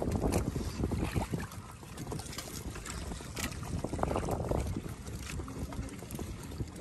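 Seawater splashing and lapping irregularly against a small boat, with some wind on the microphone.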